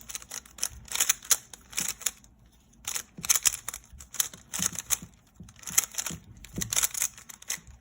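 Rubik's cube being turned by hand: quick clicks and clacks of the layers turning, in bursts, with a short pause about two and a half seconds in.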